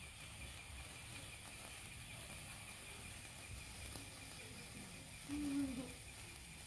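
Faint, steady fizzing crackle of a long 36-inch sparkler burning, with a brief faint pitched sound about five seconds in.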